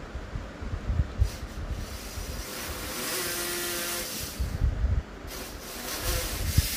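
Tool work on a wall fitting: scattered knocks and thumps, with about two seconds of steady grinding noise in the middle and a shorter burst of it near the end.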